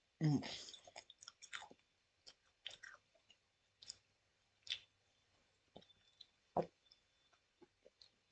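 Faint close-up chewing of caramel M&Ms: soft wet mouth clicks and smacks, scattered irregularly. A short, louder mouth sound comes right at the start.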